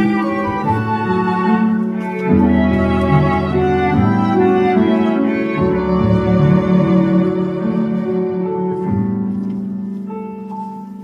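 Instrumental ensemble of Roland Aerophone digital wind instruments with violins and cellos playing a slow hymn melody in held notes. The music eases off near the end.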